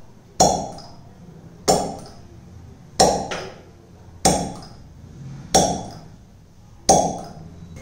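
Hand vacuum pump of a plastic cupping set being squeezed to draw the cups onto the skin: six sharp clacks, evenly spaced about a second and a quarter apart, each trailing off briefly.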